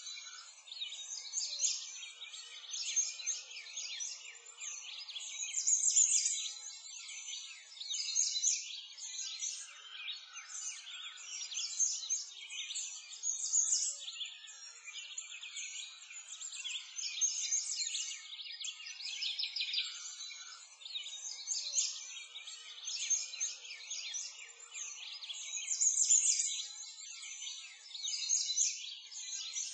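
A dense chorus of many small songbirds chirping and trilling at once, all high in pitch with nothing low beneath it, swelling and fading every few seconds.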